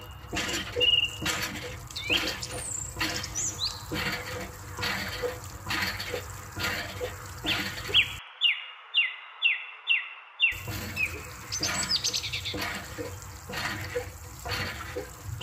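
Birds chirping, over a run of short sharp clicks, roughly two a second, from a miniature plastic hand pump being worked by its lever, with water trickling from it. A quick series of falling chirps comes about halfway through.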